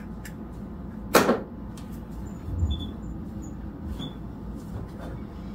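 A sharp clack about a second in, then a soft low thump, over a low steady hum.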